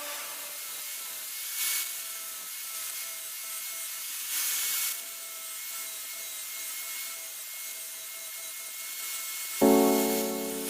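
Rubbing strokes on a wooden khukuri handle being shaped by hand, a few seconds apart, over a steady hiss. Music with piano-like notes comes in near the end.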